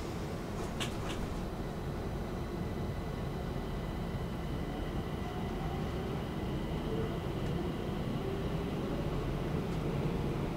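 Stockholm metro train pulling away from the platform, heard from inside the passenger car: a steady running rumble with thin steady whines and a faint whine that rises as the train picks up speed. Two sharp clicks about a second in.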